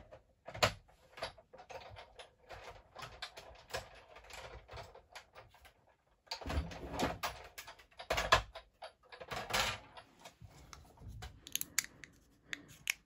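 A hand-cranked die-cutting machine and its cutting plates being handled and run through, a busy run of small clicks and knocks with a few louder clattering clusters past the middle.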